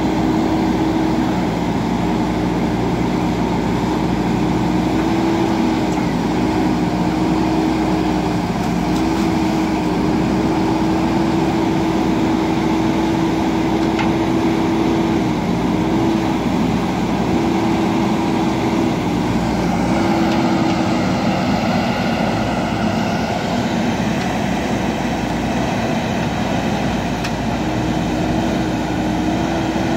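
JCB backhoe loader's diesel engine running steadily while working, with a steady droning hum. A fainter higher whine joins about twenty seconds in for a few seconds.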